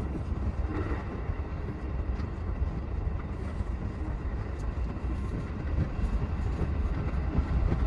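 E233-series electric train running, heard inside the driver's cab: a steady low rumble of the train on the rails.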